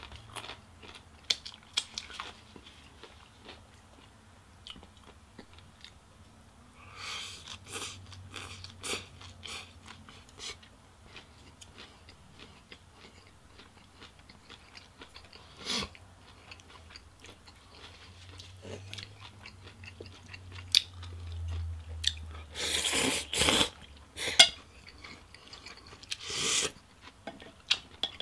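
Close-miked chewing of food, with many small mouth clicks and a few louder spells, the loudest about three quarters of the way through.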